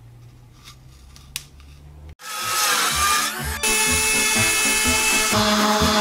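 A few faint scratches of a Pica Dry marker's lead being turned in its built-in sharpener. About two seconds in, loud background music with a steady beat cuts in over power-tool noise.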